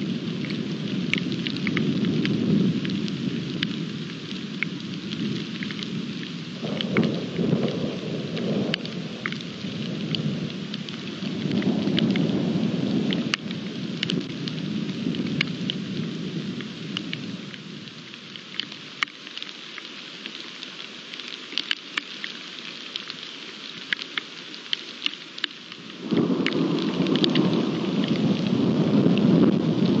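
Rain falling steadily with sharp drop clicks, under rolling thunder that swells and fades in waves. The thunder dies away for a while, then a new rumble breaks in suddenly near the end.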